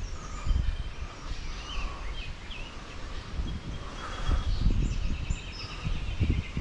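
Small birds chirping and calling intermittently over an uneven low rumble of outdoor background noise.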